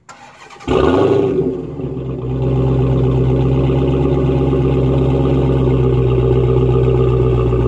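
Dodge Charger Hellcat's supercharged 6.2-litre HEMI V8 starting up: it fires about a second in with a loud flare of revs, then settles into a steady, loud idle.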